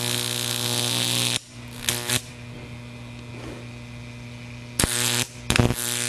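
High-voltage arc from a 10,000-volt, 23 mA oil-furnace ignition transformer, drawn off its terminal with a metal rod and buzzing loudly. It breaks off about a second and a half in, leaving the transformer's quieter steady mains hum, then buzzes again in short spells near the end.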